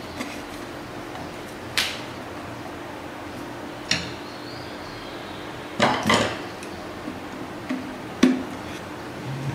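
Tools and metal parts being set down and handled while assembling a power supply: a few sharp clicks and knocks, two of them close together midway, over a faint steady hum.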